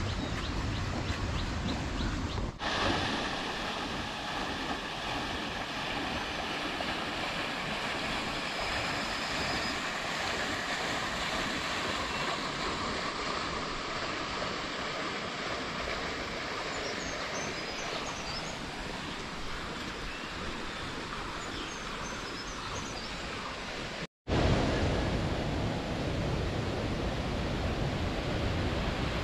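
Steady rush of flowing water, with a few faint bird chirps. The sound changes about two and a half seconds in and drops out briefly near the end.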